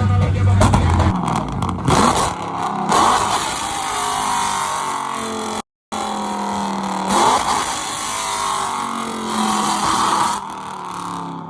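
Loud vehicle engines revving and accelerating past, their pitch rising and falling, in two stretches broken by a brief dropout just before six seconds in.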